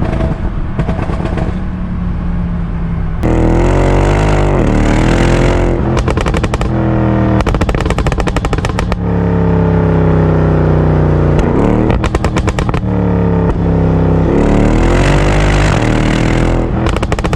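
Stage 1 tuned Mercedes CLS63 AMG twin-turbo V8 idling, then revved up several times, with rapid strings of crackles and pops from the exhaust as the revs drop off. The tune has pops and bangs enabled.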